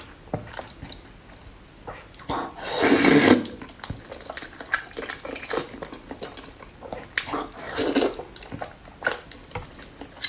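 A person eating close to the microphone: chewing and lip-smacking with many small wet clicks, and two louder slurps, about three seconds in and again about eight seconds in.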